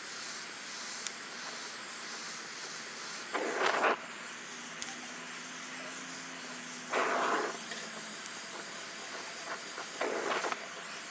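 Oxy-fuel torch flame hissing steadily while it heats the tang of a hardened leaf-spring knife blade, drawing the temper back so the tang can be drilled. The hiss briefly grows louder three times, a few seconds apart.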